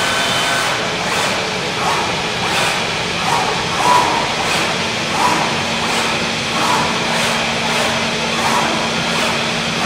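Zünd G3 digital flatbed cutter at work: its cutting head's quick moves over the printed sheet make a run of short sweeping sounds, roughly one every two-thirds of a second, over a steady rushing hiss. A low steady hum joins about halfway through.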